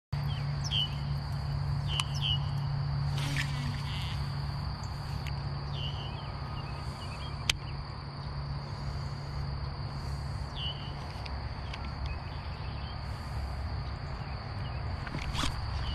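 Insects trilling in one steady, unbroken high drone, over a steady low hum. A few short bird chirps come and go.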